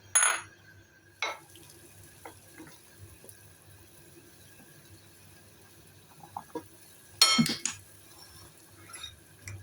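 Kitchen clinks and knocks from a small cooking pot and its utensils: a few sharp ringing clinks, the loudest cluster about seven seconds in, with light taps between and a faint steady hiss underneath.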